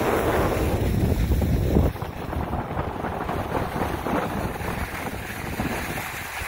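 Wind buffeting a phone's microphone while skiing downhill, with the noise of skis sliding over snow underneath. The wind is loud at first and drops sharply about two seconds in.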